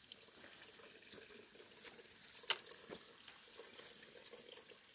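Faint, steady trickle of cold spring water seeping and running out of the rocks, with small drips and one sharp click about halfway through.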